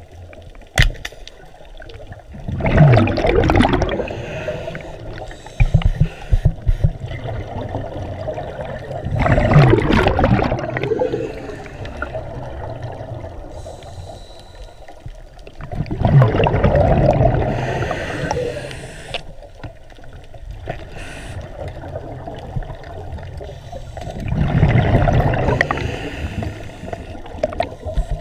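Underwater, a diver breathing through a regulator: four long bursts of exhaled bubbles rushing and gurgling past, one about every seven seconds. A few sharp clicks come about a second in and again around six seconds.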